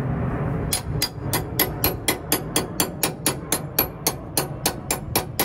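Hand wrench working a torsion bar mounting bolt on a semi truck, clicking in an even rhythm of about four sharp clicks a second that starts about a second in, over a low background rumble.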